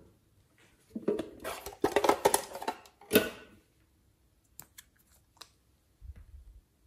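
Crinkly plastic rustling and clicking as a small clay piping bag is handled, ending in a sharp crackle, then a few light clicks.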